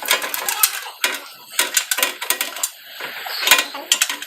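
Metal hand tools and parts clinking and clicking in a quick, irregular series of sharp clicks.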